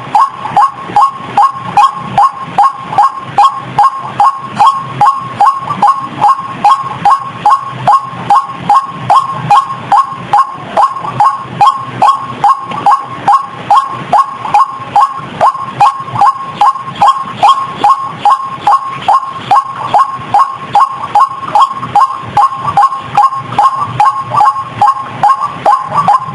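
White-breasted waterhen (ruak-ruak) call played as a bird lure: short, harsh, identical notes repeated about twice a second without a break.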